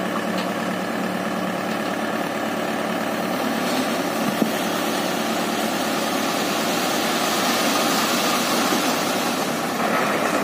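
Mahindra 575 DI tractor's four-cylinder diesel engine running steadily. From about four seconds in, a growing rush of soil sliding off the raised trailer bed joins it, strongest near the end.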